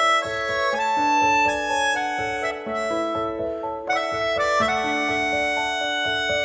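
Instrumental background music: a melody of held notes stepping from one to the next over a steady low pulse, with no singing.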